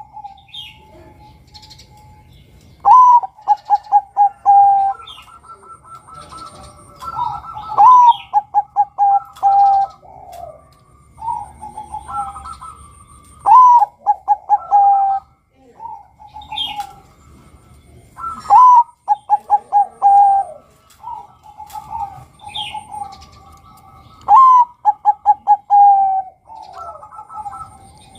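Bangkok-type zebra dove (perkutut) singing its cooing song: each phrase opens with a rising note, runs into a quick string of short coos and ends on a held coo. The phrase comes five times, about every five seconds. Faint high chirps of small birds fall between the phrases.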